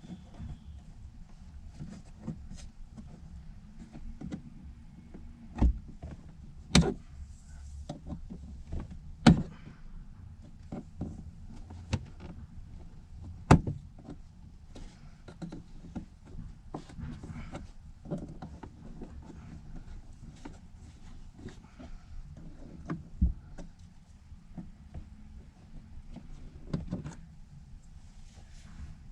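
Plastic interior trim panels and their clips being pried and worked loose: scattered clicks and knocks, with a few much louder sharp snaps, over a low steady hum.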